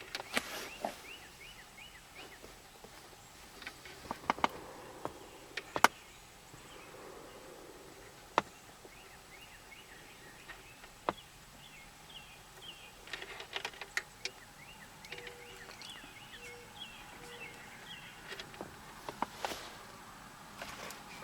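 Sharp plastic clicks and taps, scattered irregularly with small clusters, from small terminal clips being pushed and snapped into a truck wiring-harness connector. A bird chirps over and over in the background.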